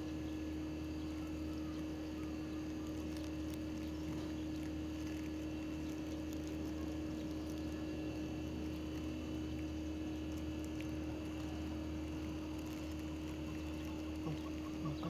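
Steady mechanical hum with one constant tone, over an even background hiss.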